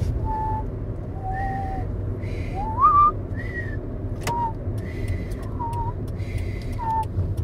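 Two people whistling a short, wandering tune in a moving car, the notes sliding up and down and at times sounding together at different pitches, over the steady low rumble of road noise in the cabin. A single sharp click sounds about four seconds in.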